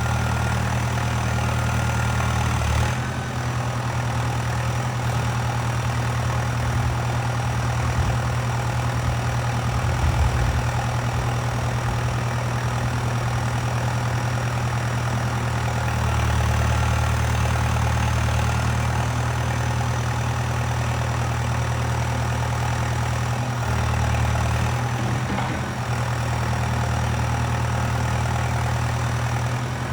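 Valtra 815 backhoe loader's diesel engine running steadily, its low note shifting in load and pitch a few times as the machine works.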